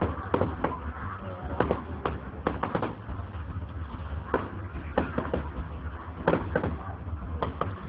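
Aerial fireworks shells bursting overhead: a rapid, irregular series of sharp bangs and crackles, over a steady low rumble.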